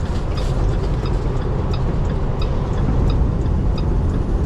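Inside a semi-truck's cab on the move: steady engine and road drone, with faint light ticking at a fairly even pace.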